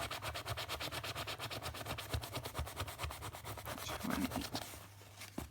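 Fast scratching of a scratch card's coating, about nine strokes a second, turning irregular after about three seconds and stopping near the end.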